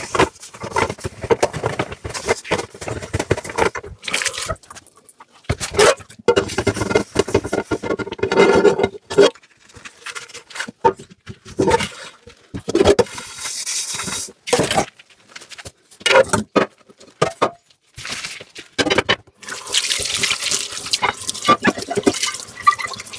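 Dishes washed by hand in a sink: water splashing and running in uneven bursts, with dishes and utensils clinking and knocking. Near the end the water runs more steadily.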